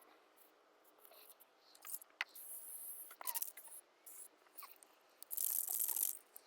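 Two-part (2K) gel coat aerosol spray can spraying in short bursts of hiss, a brief one about two seconds in and a longer, louder one near the end, with small clicks and knocks between.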